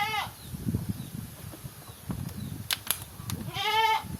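A goat bleating twice: a short bleat at the start and a longer, wavering bleat near the end. Rustling and a few sharp clicks come in between.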